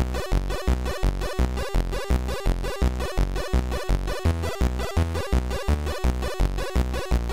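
Electronic techno soundtrack of an Amiga demo: synthesizer patterns over a steady kick drum beating about four times a second.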